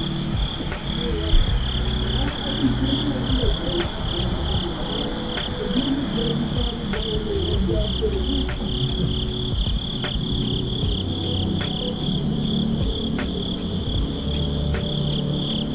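Crickets chirping in a steady, pulsing trill of about four to five pulses a second, over soft background music with a slow, regular beat.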